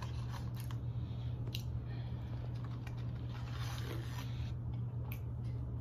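Foil-lined chicken biscuit wrapper crinkling and rustling as it is handled, with several sharp crackles. A steady low hum runs underneath.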